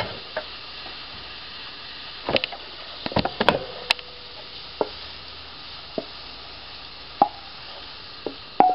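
Rice, chicken and tomato sizzling in a nonstick skillet, with scattered knocks and scrapes of a wooden spatula against the pan as the food is scraped out onto a plate.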